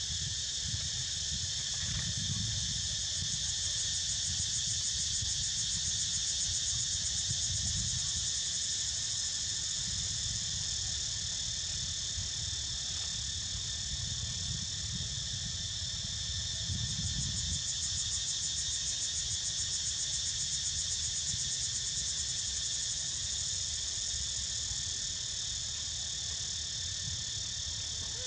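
Steady, high-pitched chorus of insects, shrill and unbroken, with a faint fast pulsing in places. A low rumble runs underneath.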